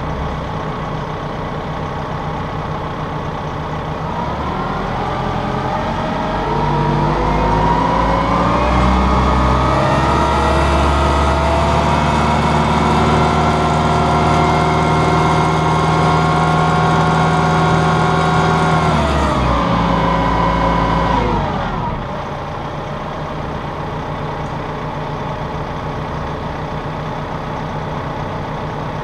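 2015 Massey Ferguson 1759 compact tractor's diesel engine idling quietly. It revs up smoothly about four seconds in, holds a steady higher speed, then drops back to idle around twenty seconds in.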